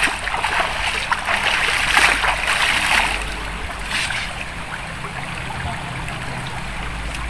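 Water splashing as it is scooped up by hand and thrown on the face, over the steady rush of a shallow river. The splashing is busiest in the first half, then the river's rush carries on alone.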